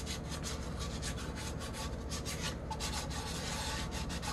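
Hand wet sanding of a glittered tumbler's clear top coat along its bottom edge: a light scratchy rubbing in quick repeated strokes, several a second. It sounds rough, though the sanding is light, only smoothing the lumps in the coat.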